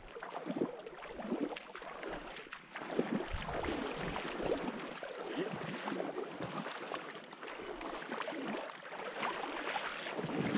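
Shallow river water splashing and sloshing around the legs of someone wading while holding a seine rope, in irregular uneven surges.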